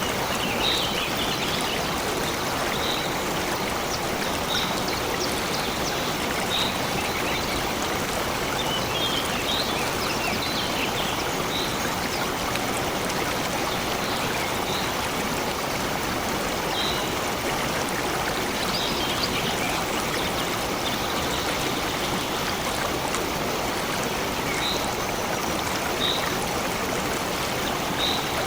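Stream flowing steadily, with a bird repeating short high chirps every second or two over the water.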